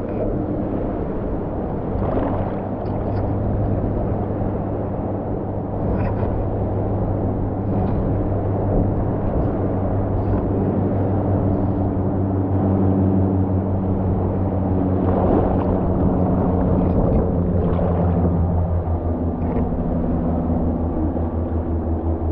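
A small motor humming steadily at a low pitch, shifting pitch slightly a few times, with water sloshing and gurgling close by.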